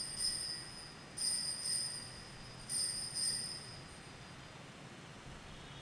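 Altar bell rung at the elevation of the chalice during the consecration: three pairs of clear, high rings about a second and a half apart, each ring fading away.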